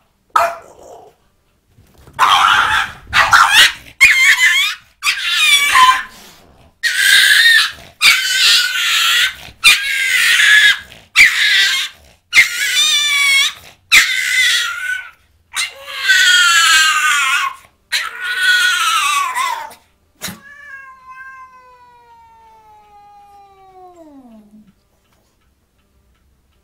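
A cat yowling and caterwauling in a string of about a dozen loud, wavering calls, each a second or so long. Near the end comes a fainter long tone that slides steadily downward for about four seconds.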